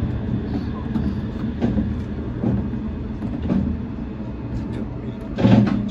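Shonan Monorail 5600-series suspended monorail car moving out of a station, with a steady low running hum and a few light knocks. A louder rush of noise comes in near the end.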